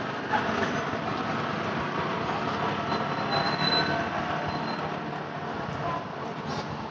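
Steady street traffic noise from a wet road, with a faint high thin whine about three to four and a half seconds in.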